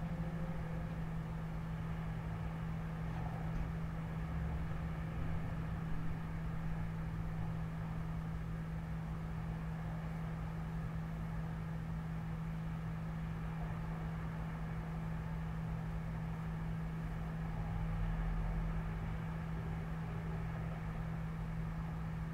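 Steady low hum over a constant rumble of distant city traffic, with a low swell about eighteen seconds in.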